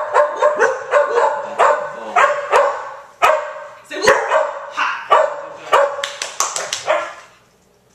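Border collie barking on the 'say woof' cue: a rapid run of short, sharp barks, two or three a second, stopping about a second before the end.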